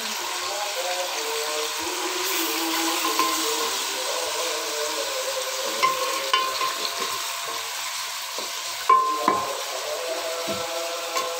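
Chicken, onion and tomato with ginger-garlic paste sizzling as they fry in a metal pot, stirred with a wooden spoon. The spoon knocks and scrapes against the pot a few times in the second half, loudest about nine seconds in.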